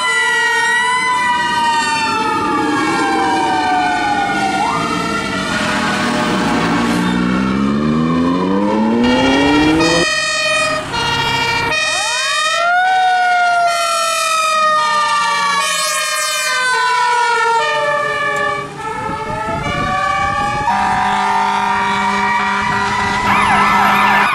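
Fire truck warning devices in succession: a Q-type mechanical siren winding up and down in long pitch glides, and two-tone air horns switching rapidly back and forth between two pitches, with abrupt changes from one truck to the next.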